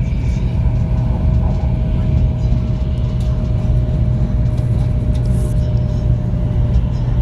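Steady low rumble of a running vehicle, with a faint steady whine that slowly drops a little in pitch.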